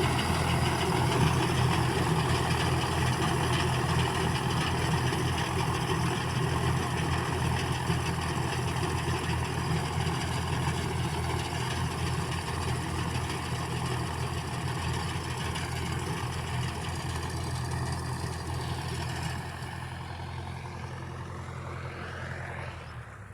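Heavy diesel engine of a harvesting machine, likely a tractor, running steadily. It grows gradually fainter, and its pitch shifts over the last few seconds.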